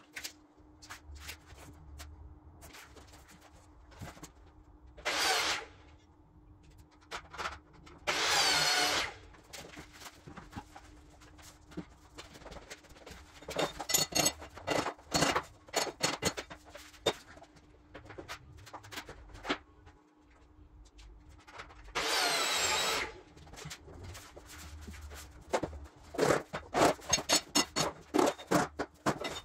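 Hand tools working vinyl flooring planks: scattered knocks and runs of quick hammer taps as planks are fitted. Three rasping sounds about a second long fall in between, one near the start, one a few seconds later and one past the middle.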